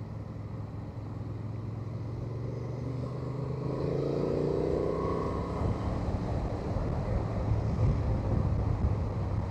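Honda Transalp 750's parallel-twin engine running under way, with road noise. About a third of the way in it grows louder and a higher rising whine comes and goes, as the bike picks up speed or another vehicle passes.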